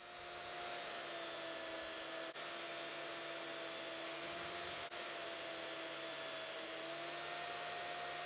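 A power tool's electric motor running steadily at constant speed: a steady whine over a hiss, with two momentary dips.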